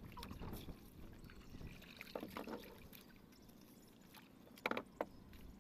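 Water splashing and dripping around a small canoe as hands work in the lake water by its side, with scattered small clicks and two sharp knocks in quick succession near the end.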